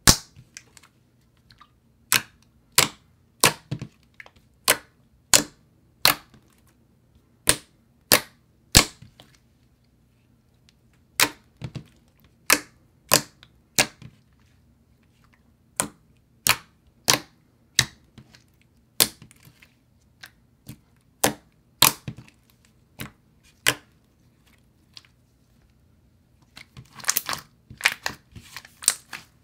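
Soft, clicky slime being poked and pressed with the fingers, letting out sharp clicks and pops one after another, roughly one or two a second. A quick run of denser crackling comes near the end as the slime is squashed.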